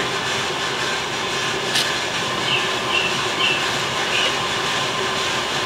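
Bideli 2 kg propane drum roaster running mid-roast: a loud, steady rush and rattle from its drum, fan and gas burner. There is one sharp click about two seconds in, and a few faint high chirps in the middle.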